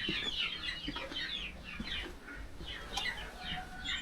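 Many birds calling at once: a dense run of short, overlapping chirps and clucks.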